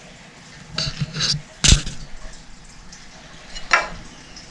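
Sticky homemade gummy-bear slime being handled and squished: a few short smacks and squishes, the loudest just under two seconds in and another near the end.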